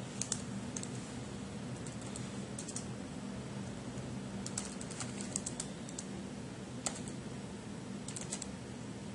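Computer keyboard keys being typed in short irregular bursts of clicks with pauses between them. A faint low steady hum runs underneath.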